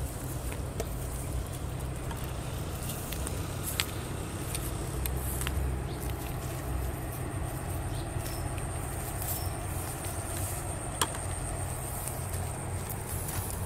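Footsteps and rustling through grass over a steady low rumble, with scattered sharp clicks and a faint steady high tone.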